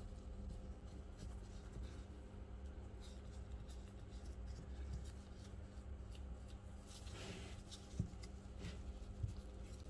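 Faint rustling and rubbing of plastic-gloved hands laying and pressing slices of white cheese onto a pie in a metal pan, with two light sharp taps near the end.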